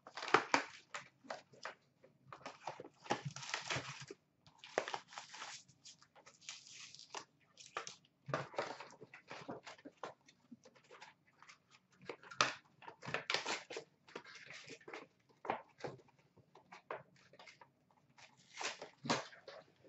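Foil hockey card packs and their cardboard box being handled and set down, a run of short crinkling and rustling bursts with brief pauses between them.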